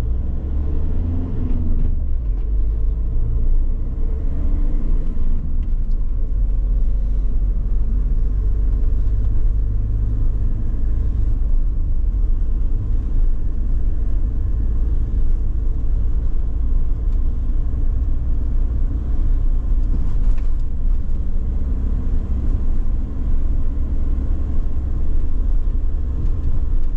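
Steady low rumble of a VW Crafter camper van's diesel engine and tyre noise, heard from inside the cab while driving along a road.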